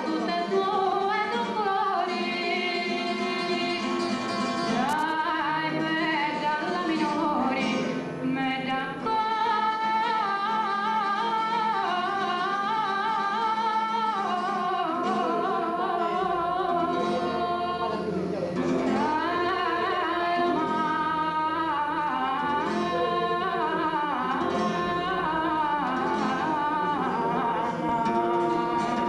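A woman singing a melody with held, wavering notes, accompanied by a strummed and plucked acoustic guitar.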